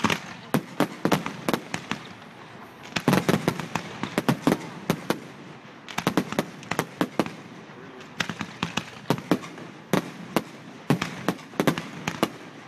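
Fireworks display: rapid volleys of sharp bangs and crackles, coming in clusters of several reports a second with short lulls between them.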